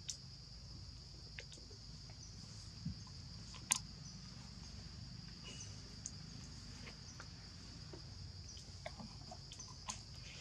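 Steady high-pitched insect chorus, with a few soft clicks and rustles of dry leaves; the sharpest click comes a little before four seconds in.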